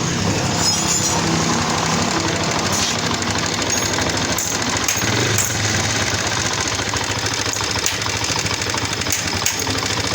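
Honda CD70's single-cylinder four-stroke engine running with a steady timing-chain rattle. The mechanic puts the noise down to a slack timing chain whose tensioner spring has gone too soft.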